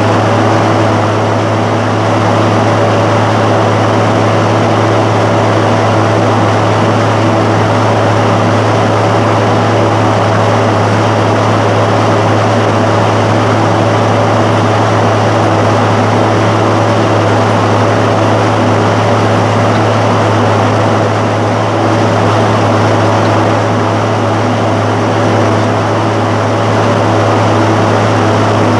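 John Deere 7515 tractor's diesel engine running steadily under load while pulling a disc harrow, a constant drone with a strong low hum.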